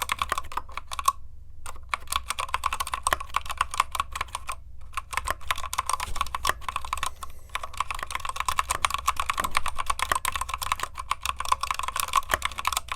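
Typing on a Keychron K8 Retro mechanical keyboard with red linear switches: a fast, continuous run of key clicks, broken by a short pause about a second in and a briefer one about five seconds in.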